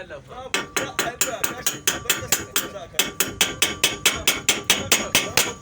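Hammer striking metal in quick, even blows, about five a second, starting about half a second in, with the metal ringing faintly under the strikes.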